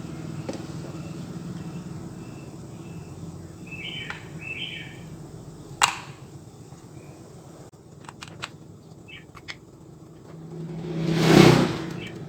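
Birds chirping briefly in the background, a few sharp clicks, then a loud whoosh that swells and dies away near the end.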